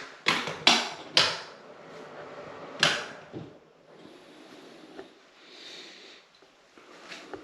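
Four sharp knocks and clatters within about three seconds, then faint rustling.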